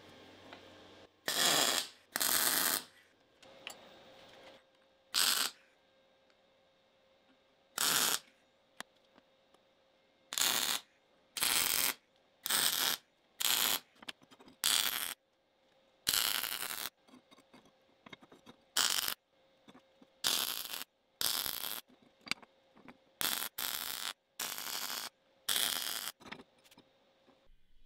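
MIG welding arc crackling in about eighteen short bursts, each under a second, as tack welds and short runs are laid on a steel plate bracket. A faint steady hum sits in the gaps between bursts.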